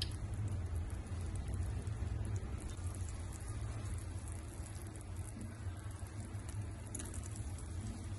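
Soup cooking in a pot over the heat: a steady crackling, bubbling patter with a low rumble underneath.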